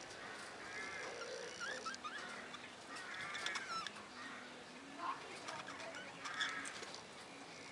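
A flock of budgerigars chattering and warbling, with short chirps and squeaky rising and falling whistles overlapping one another.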